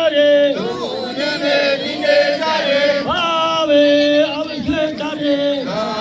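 Two men chanting a traditional Nyishi wedding chant (buya) into microphones, in long held notes that slide in pitch at the ends of phrases.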